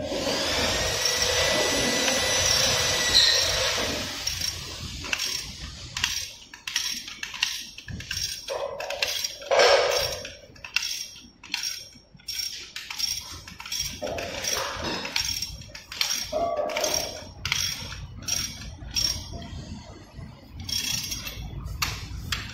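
A ratchet wrench works the big axle nut of an electric scooter's rear hub motor, loosening it. For the first few seconds there is a sustained metallic grinding with a high ring. After that comes a long, irregular run of sharp ratchet clicks and metal clinks, with a few duller knocks.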